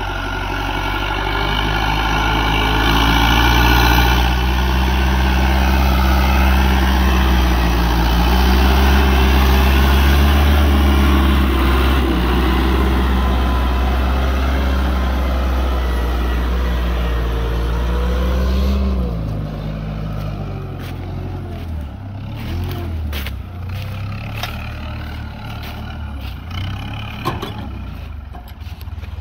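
Fiat 640 DT tractor's diesel engine running steadily under load, pulling a reversible plough through the soil. About two-thirds of the way through, the engine note drops and the sound turns quieter, with scattered short crackles.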